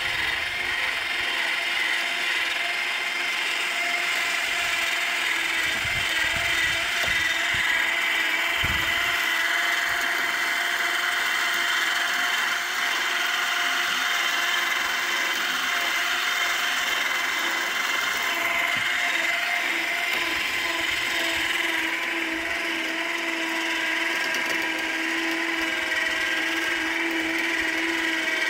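Harbor Freight 12-volt electric truck winches running steadily, their motors and gearing whining as they wind and unwind steel cable to roll the shed along its tracks.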